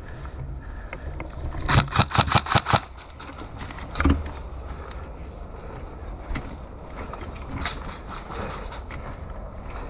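Gas-blowback airsoft gun firing a fast string of about seven shots in a second, each a sharp crack with the bolt cycling, followed about a second later by a single dull thump.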